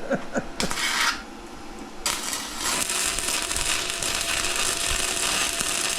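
Welding arc crackling: a brief burst about half a second in, then a continuous crackle from about two seconds in.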